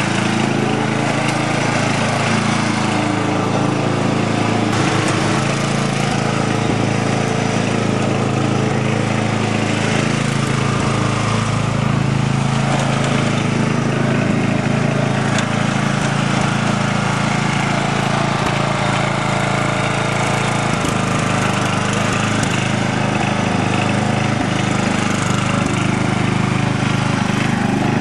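The 12-horsepower Briggs & Stratton engine of a 1987 Simplicity SunRunner lawn tractor running steadily while the tractor is driven.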